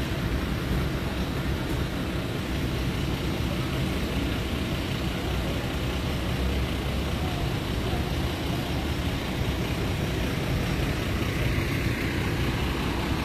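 Steady low rumble of street traffic, with no distinct events standing out.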